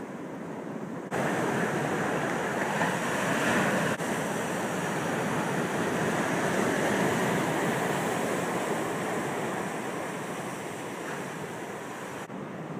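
Ocean surf washing over a rocky shore, with wind buffeting the microphone. It steps up louder about a second in and drops back near the end.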